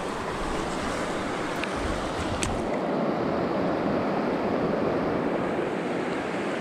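Steady rush of a fast-flowing river's current, with one faint click about two and a half seconds in.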